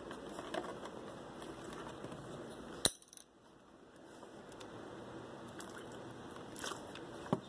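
Light kitchen handling noises: faint clinks and a low hiss, one sharp click about three seconds in and two smaller clicks near the end. The blender motor is not running.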